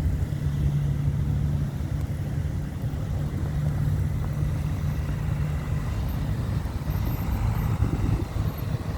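A motor vehicle's engine running with a steady low hum that fades about five and a half seconds in, over a constant low rumble of storm wind.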